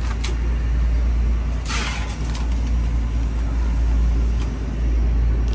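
Steady low drone of a boat's engine, heard inside the cabin, with a brief hiss about two seconds in.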